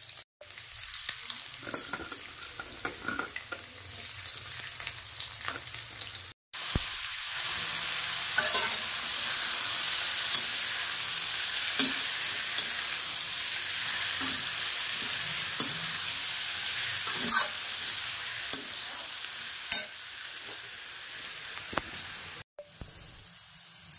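Methi saag with garlic and dried red chillies sizzling in a kadhai as it is stirred, the spatula clicking and scraping against the pan. The sizzle gets louder about six seconds in and drops away near the end.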